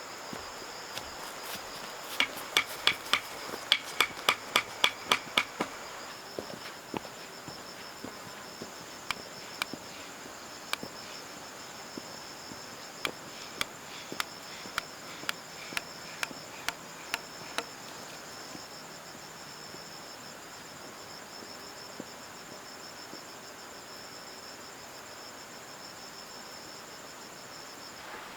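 Insects chirring steadily in a high, pulsing drone, with a run of sharp knocks about three a second early on that thin out to single knocks and stop after about 18 seconds.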